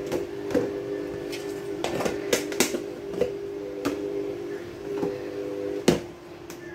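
Plastic food storage containers and their lids being handled and set down on a granite countertop: a string of light clacks and knocks, the sharpest one near the end, over a steady hum.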